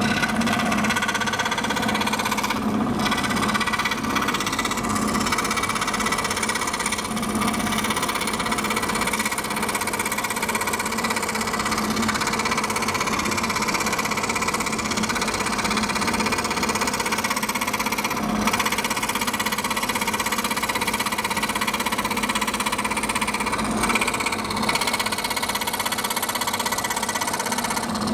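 Scroll saw running steadily under load, its reciprocating blade cutting through a board. A constant motor hum with the rapid buzz of the blade stroking up and down.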